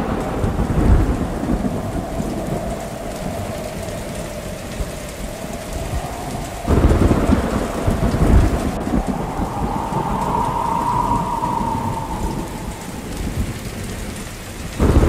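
Recorded rain and thunder sound effect: steady heavy rain with low rolling thunder, growing suddenly louder about seven seconds in.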